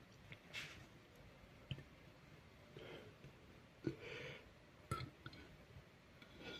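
Faint breathing and small mouth clicks from a person between burps, with soft breaths about half a second and four seconds in.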